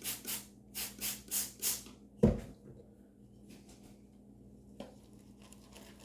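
Six quick hissing spritzes from a water spray bottle over a shaving bowl of lather, then a single sharp knock a moment later as something is set down.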